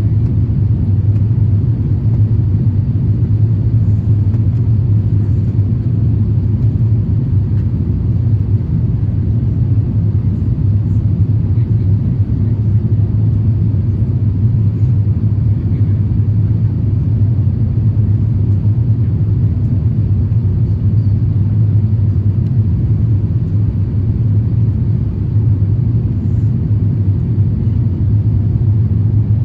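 Steady low rumble inside the cabin of an Airbus A350-1000 airliner: engine and airflow noise, unchanging throughout.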